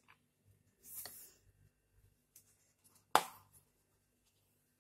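A plate and a wire cooling rack handled while a cake is turned over onto the plate: a soft scrape about a second in, then one sharp knock a little after three seconds as they are set down on the counter.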